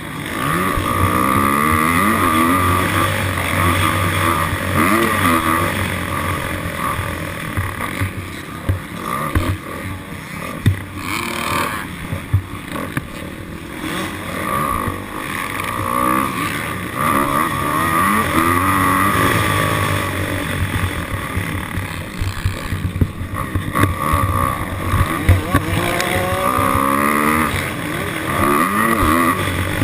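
Motocross dirt bike engines revving hard, the pitch climbing in repeated rising sweeps as the bikes accelerate and shift up through the gears, then dropping back.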